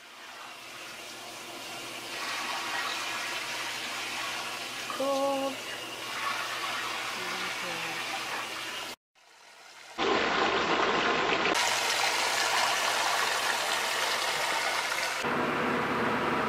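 Top-loading washing machine filling with water: a steady rush of water into the tub. It builds over the first couple of seconds, breaks off for about a second near the middle, then comes back louder.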